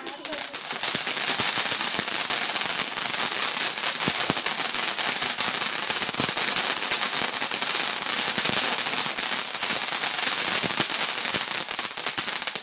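Firework crackling: a dense, rapid run of small pops and crackles that goes on for about twelve seconds without a break.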